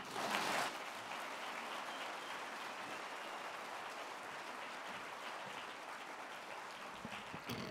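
Audience applauding steadily, a little stronger at first and dying down near the end.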